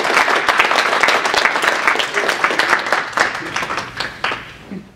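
Audience applauding, the clapping thinning out and dying away over the last couple of seconds.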